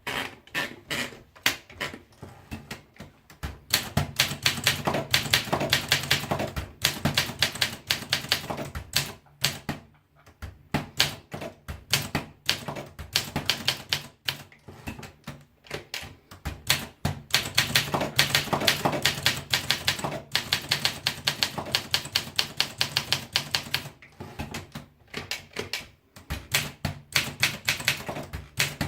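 Olympia SM3 De Luxe manual portable typewriter being typed on: rapid runs of sharp keystroke clicks, several a second, broken by short pauses.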